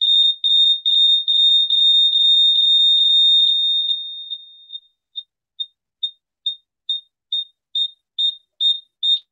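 Electronic beeping: one high-pitched beep repeated a little over twice a second. For the first few seconds the beeps run together into an almost continuous tone that fades out, then they come back as separate beeps growing louder.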